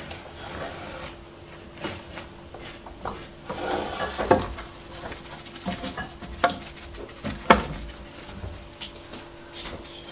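Salted chunks of pork fat (salo) being moved by hand on a wooden cutting board: scattered soft knocks and rubbing, the sharpest knock about three quarters of the way through, over a faint steady hum.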